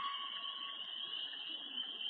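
A distant red fox calling: one faint, drawn-out scream, a held note lasting just over a second at the start. It sits over a steady, high-pitched chorus of night creatures.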